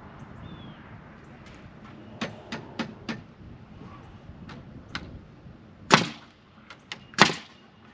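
Nail gun firing into a wooden rafter board: two loud sharp shots about a second apart near the end, after a series of lighter knocks and taps.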